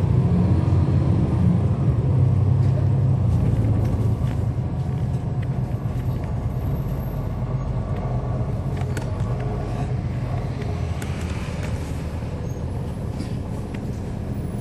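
On-board sound of a 2011 NABI 40-SFW transit bus under way, its Cummins ISL9 diesel and ZF Ecolife automatic transmission droning. The low drone is strongest for the first four seconds or so, then eases, with a few light rattles later.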